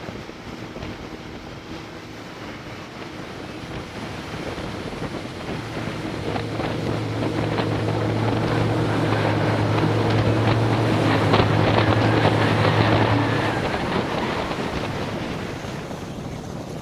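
Rigid-hull inflatable boat running fast over open sea: a steady engine drone under rushing water, spray and wind buffeting the microphone. The sound swells to a peak a little past the middle and then fades.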